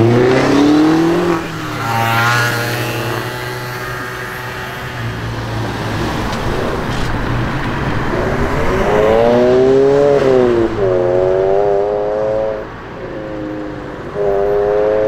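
Volkswagen Scirocco engines accelerating hard past the camera one after another. Each time the revs climb, drop at a gear change and climb again, with the loudest runs at the start and from about nine seconds in.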